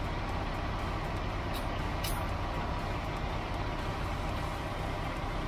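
Two short hisses of compressed air about one and a half and two seconds in, the second stronger, from an air chuck on a semi-truck tyre valve while the tyre is aired up. A steady low engine rumble runs underneath.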